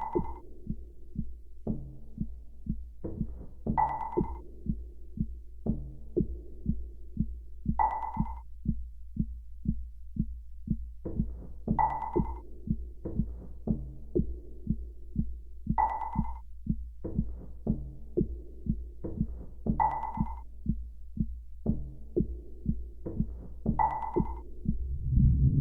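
A looping electronic pattern made from button-sound samples: short clicks in a fast even rhythm over a steady low hum, with a bright ping every four seconds. A louder, fuller sound swells in right at the end.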